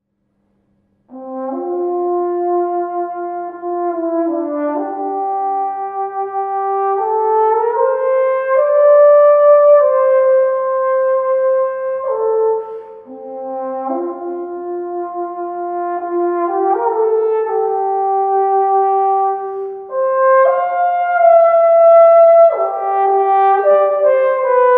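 Solo trombone playing a slow melody of sustained, smoothly joined notes that step up and down in several phrases, with short breaks for breath between them. It comes in about a second in.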